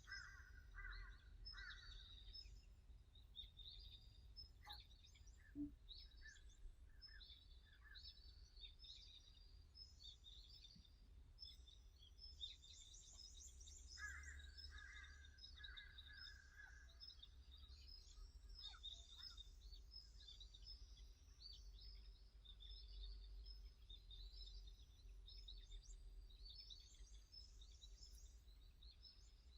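Small wild birds chirping and singing faintly, with many quick high chirps throughout and a second bird's run of lower repeated notes near the start and again about halfway through, over a faint low rumble.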